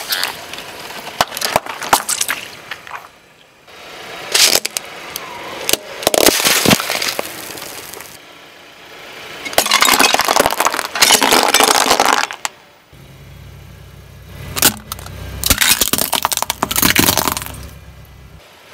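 Objects crushed under a car tyre: repeated bouts of cracking, crunching and clinking of plastic toys and small hard pieces breaking, about five bouts in all. A low steady rumble runs under the second half.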